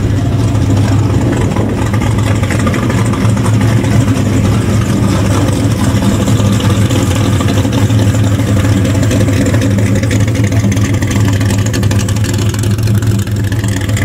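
Engine of a hot-rodded 1969 Chevrolet Camaro, its intake sticking up through the hood, running loud and steady at low revs as the car rolls slowly past.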